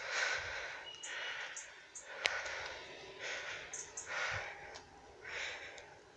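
Breathing close to the microphone, a soft puff about every second, with one sharp click about two seconds in.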